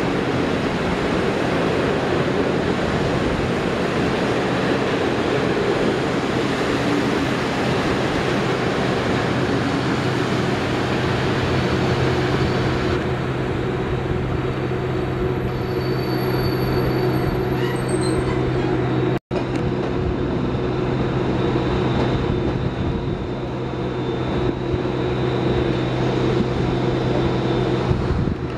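Locomotive-hauled passenger train rolling slowly through the station, a steady rumble of wheels on rail with a low electric hum. The sound cuts out for an instant about two-thirds of the way through.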